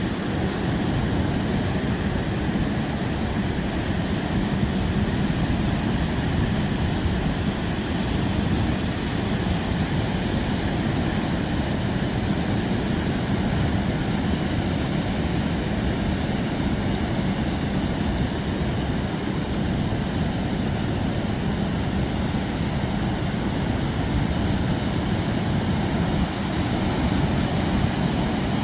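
Steady coastal roar of ocean surf and wind, a dense low rumble that never lets up.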